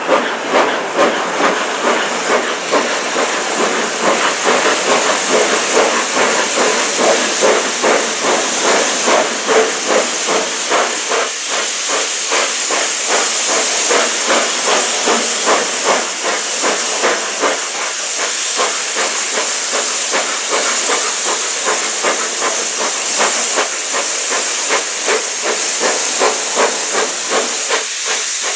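BR Standard Class 4MT 4-6-0 steam locomotive 75078 working a train, heard from on board: rhythmic exhaust beats over a steady hiss of steam.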